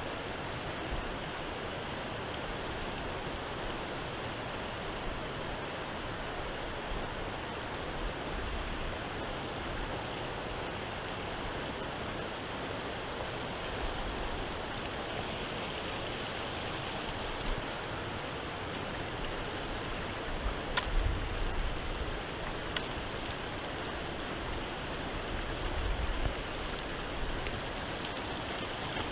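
Steady rush of river water flowing over a cobble bed, with a few dull low bumps about two-thirds of the way in and again near the end.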